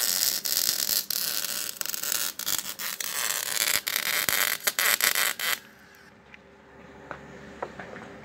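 MIG (semi-automatic) welding arc crackling and hissing as a steel pipe joint is welded, stopping about five and a half seconds in. After that only a faint steady hum and a few small clicks remain.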